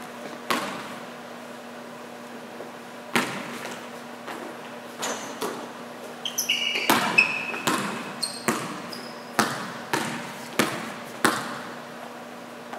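Basketball bouncing on an indoor gym court: a few scattered bounces, then steady dribbling about every two-thirds of a second in the second half, each bounce echoing in the hall. Short high sneaker squeaks on the court floor come in a cluster about halfway through.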